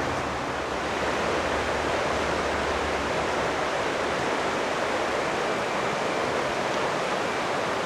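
Fast mountain river rushing over rocks: a steady, even rush of water.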